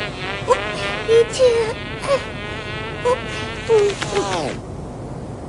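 Cartoon housefly buzzing in flight: a steady, wavering buzz broken by about six short, sharp pitched blips. Near the end a few falling tones sound and the buzz stops.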